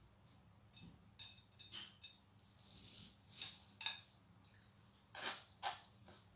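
Puffed rice (muri) rustling and crackling as a hand tosses and stirs it in a glass bowl, in short irregular bursts, the loudest about halfway through.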